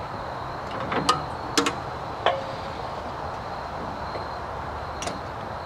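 A few sharp metallic clicks and knocks, irregularly spaced, over a steady background noise, from the bandsaw sawmill's head being raised to its top height.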